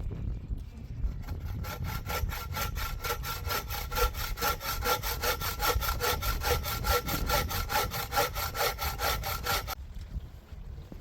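Hand saw cutting through a piece of ash, in even back-and-forth strokes of about four a second that start about a second in and stop near the end.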